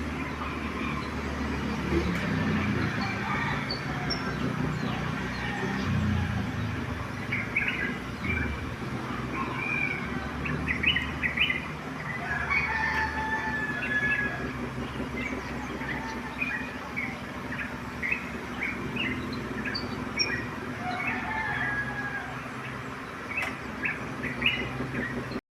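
Roosters crowing now and then among many small birds chirping, with a low hum in the first several seconds.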